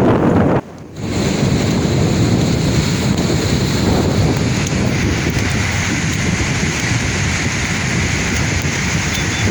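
Sea waves washing in, with wind buffeting the microphone. The sound cuts out briefly about half a second in, then carries on.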